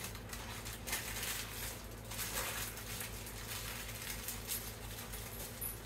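Wax paper rustling and crinkling in irregular soft bursts as a burrito is rolled up in it by hand.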